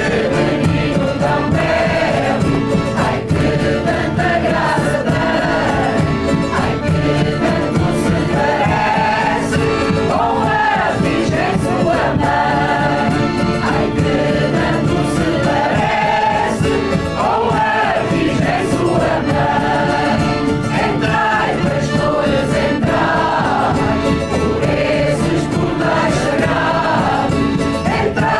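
A choir singing continuously, several voices together.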